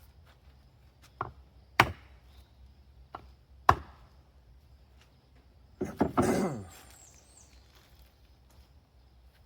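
Hammer blows knocking the bearings out of an excavator travel motor: four sharp strikes in the first four seconds, then a longer clattering rattle about six seconds in.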